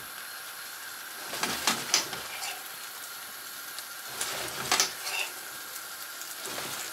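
Stuffed squids simmering in a thick masala sauce in a frying pan, with a steady faint sizzle. A metal spoon scrapes and clinks against the pan in two short spells, about a second and a half in and again around four to five seconds in.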